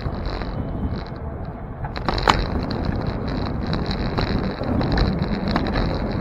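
Riding noise from a bicycle-mounted camera rolling over city pavement: a steady low rumble of tyres and wind on the microphone, with one sharp knock a little over two seconds in.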